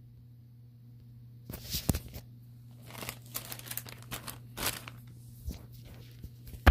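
Plastic and foil packaging pouches crinkling as they are handled, in several short rustling bursts, with a sharp click at the very end. A low steady hum runs underneath.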